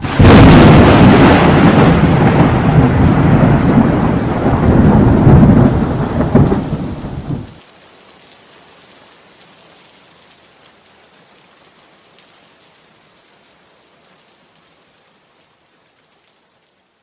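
Thunder with heavy rain, loud and rumbling for about seven and a half seconds, then cut off abruptly to a faint rain hiss that fades out.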